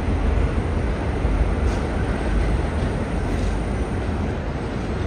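Subway train rolling slowly through yard tracks, a steady low rumble.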